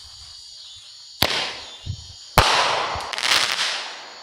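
Consumer fireworks going off: a sharp bang about a second in, then a louder bang a little past halfway, followed by a second or so of crackling and hissing that fades away.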